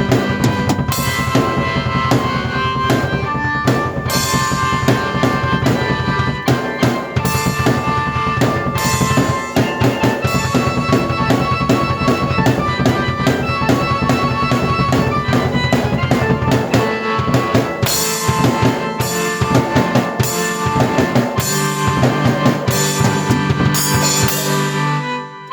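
Drum kit played with kick, snare and rimshots, under sustained keyboard notes, both played at once by one performer.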